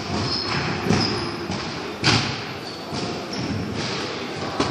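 A few dull thuds ringing out in the echo of a large sports hall, about a second in, about two seconds in (the loudest) and again near the end. Under them runs a faint murmur of voices with brief high squeaks.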